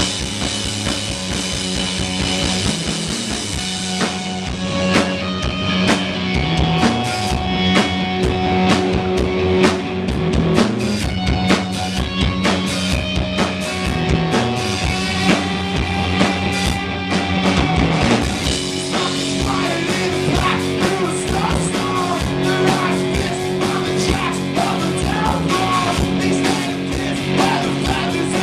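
Post-punk rock band playing live: electric guitar, bass and a drum kit hit hard and fast, at a steady, loud level.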